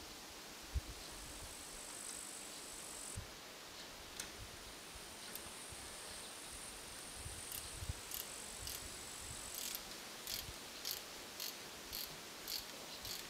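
Faint high insect buzzing outdoors, in stretches. In the second half it turns to short high ticks about twice a second. Low wind rumble sits underneath.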